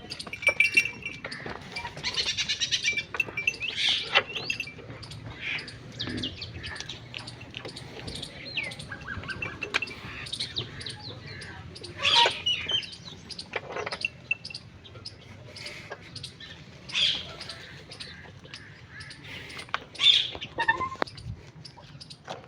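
Birds chirping and calling repeatedly, with several louder calls standing out.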